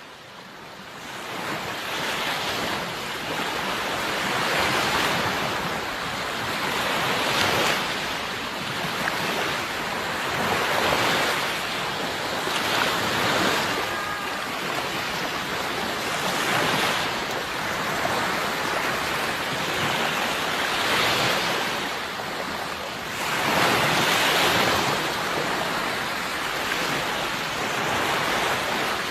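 Sea surf: waves washing in one after another, each swelling and receding every few seconds. It fades in over the first couple of seconds.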